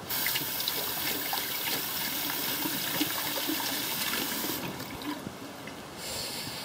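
Kitchen tap turned on, water running over hands and splashing into the sink, then shut off about four and a half seconds in.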